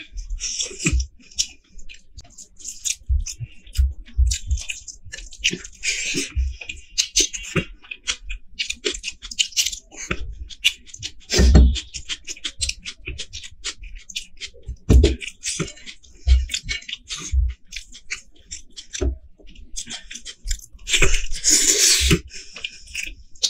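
Close-miked chewing and wet mouth sounds, with squelching as fingers tear curried meat off a large mutton bone, and a few low thumps.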